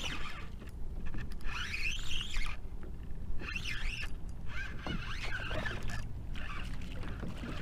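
Spinning reel and line working against a hooked sheepshead on a sharply bent rod, heard as scratchy bursts about every second and a half, with water sounds from the fight, over a steady low rumble of wind on the microphone.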